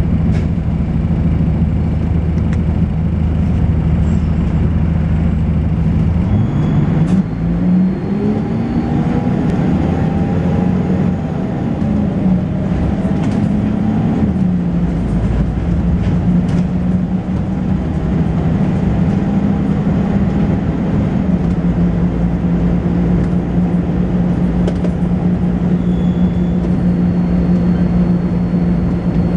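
Volvo B10BLE bus's six-cylinder diesel engine idling steadily, then pulling away about six seconds in, its note rising. The ZF automatic gearbox changes up about halfway through, the note dropping, and the engine then runs on at a steady pitch.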